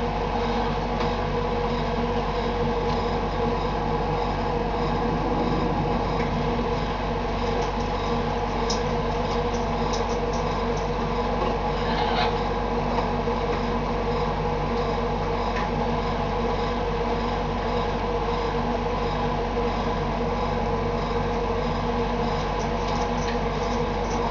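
Steady machine hum with several constant tones, unchanging throughout, with a few faint clicks about 9 and 12 seconds in.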